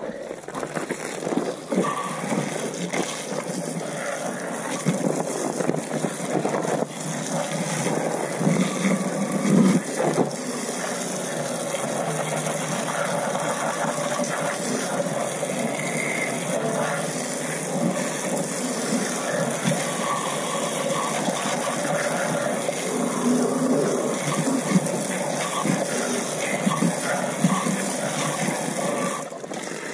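Garden hose spraying a jet of water onto a chrome truck wheel and tyre, rinsing off foamed wheel cleaner, with water splashing down onto gravel; the spray runs steadily and stops near the end.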